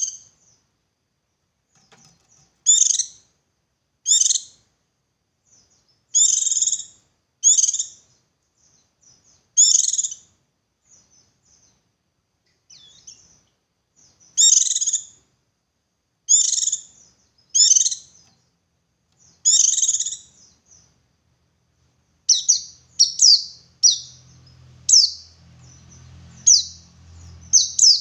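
White-eye (pleci, buxtoni type) singing in the 'ngalas' style: short, high chirpy phrases about every second or two, coming faster near the end. A faint low hum joins in the last few seconds.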